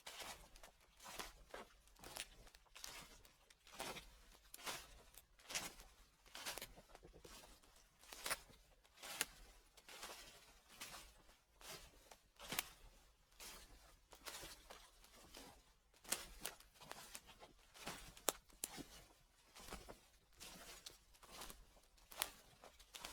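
Footsteps crunching through dry fallen leaves at a steady walking pace, about one step a second, each step a crisp rustling crunch.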